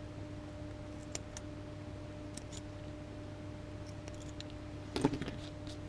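Small clicks and light clatter of hands handling a circuit board and its parts on a work mat: a few faint scattered ticks, then a louder handling clatter about five seconds in, over a faint steady electrical hum.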